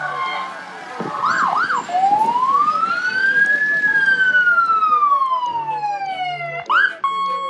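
Fire engine siren sounding as it passes: two quick whoops, then one long wail that rises and slowly falls, ended by another quick whoop. A steady siren tone starts up right at the end.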